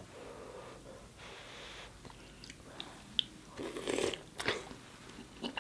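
Close-up eating sounds: biting into a sauce-covered boiled egg and chewing, with small wet mouth clicks. The bite is loudest at about three and a half to four and a half seconds in.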